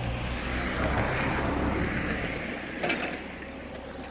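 Roadside traffic: a low engine hum, then a passing vehicle's rush that swells and fades over a second or two. A single sharp click comes about three seconds in.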